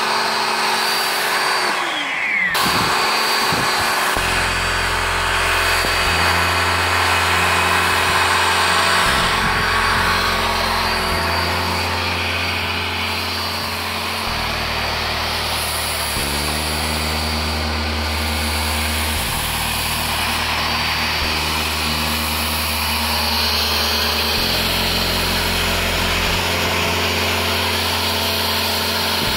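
Vax electric pressure washer running with a snow foam lance, a steady loud hiss of spray. About two seconds in its motor winds down with a falling tone, stops for a moment, then starts again.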